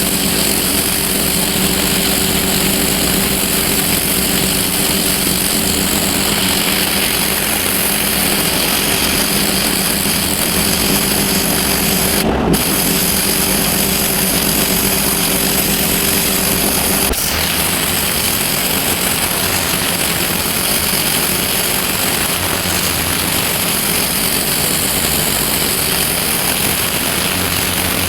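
Pressure washer running under load, its motor humming steadily under the loud hiss of the high-pressure water jet. The motor's tone shifts about seventeen seconds in.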